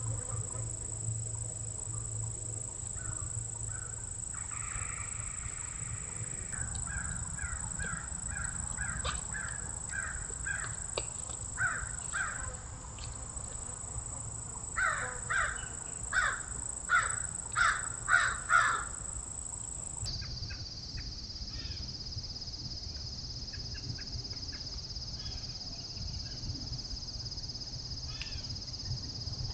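A crow cawing in repeated series, the loudest a run of about six caws midway, over a steady high buzz of insects.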